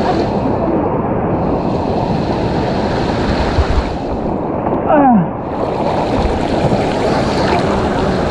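Steady, loud wind rush on the microphone of a moving motorcycle. About five seconds in, a short sound falls in pitch.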